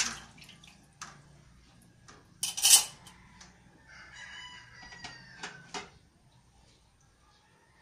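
Ceramic plates and bowls clattering against each other as they are handled and stacked in a dish rack, loudest about two and a half seconds in. A rooster crows in the background from about four seconds in, a call of about two seconds with a falling end, with a few more dish clinks over it.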